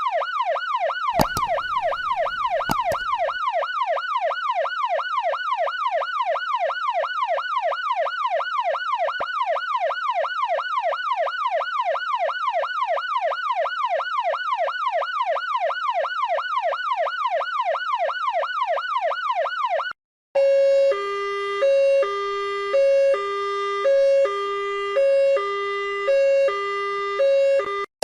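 Electronic emergency-vehicle siren in a rapid yelp, its pitch sweeping up and down about three times a second, with a short rumble and a couple of clicks a second or two in. About twenty seconds in it cuts off and a two-tone hi-lo siren takes over, switching between a high and a low note about once a second.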